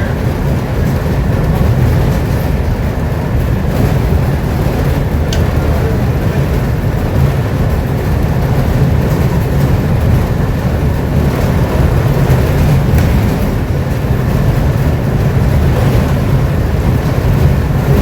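Bus engine and road noise heard from inside the moving bus: a steady low rumble.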